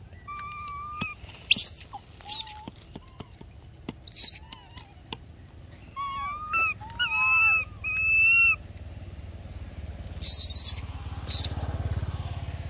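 Infant long-tailed macaque calling: a string of high, whistly coos and whimpers that rise and fall in pitch, mostly around the middle, and several short, piercing shrieks that are the loudest sounds.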